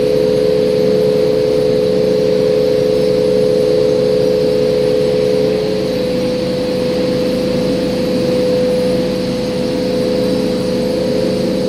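A motor running steadily with a constant hum, at one unchanging pitch.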